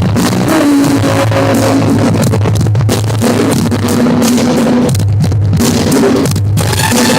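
Rock music with guitar and drums, playing loudly and steadily.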